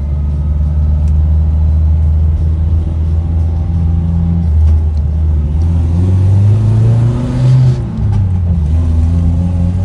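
Mazda 1800's four-cylinder engine heard from inside the cabin on the move: running steadily, then rising in pitch as it accelerates from about five and a half seconds in, falling back just before eight seconds and settling again. The owner says the engine misfires under heavy throttle.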